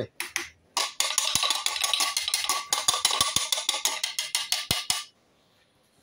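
Metal spoon scraping and tapping against the inside of a plastic blender bowl, stirring and scooping out coarse ground dried orange peel: a rapid run of clicks and scrapes that stops about a second before the end.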